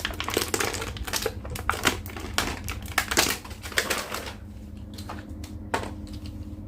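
Quick, irregular plastic clicks and taps from a toy action figure being handled, dense at first and thinning out after about four seconds.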